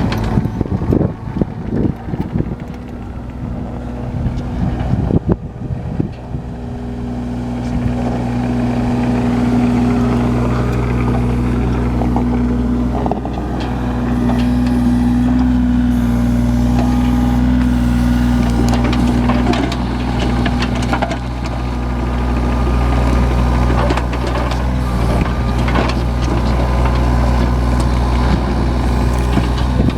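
John Deere 35G mini excavator's Yanmar diesel engine running steadily, with a few knocks early on. It grows louder about a quarter of the way in, and a steady higher tone rides over it through the middle.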